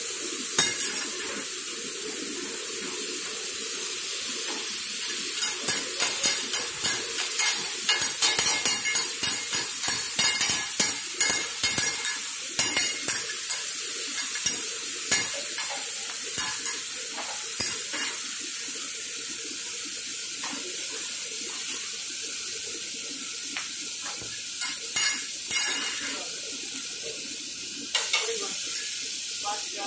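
Beef and bean sprouts sizzling steadily on a hot flat-top hibachi griddle, with two metal spatulas scraping and clacking against the steel in quick strokes for about twelve seconds from a few seconds in, then again briefly near the end.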